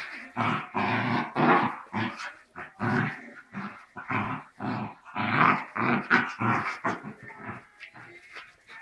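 Two small dogs, a dachshund and a Cairn terrier, growling in rough play-wrestling: a quick run of loud growls that eases off near the end. It is play-fighting, not a real fight.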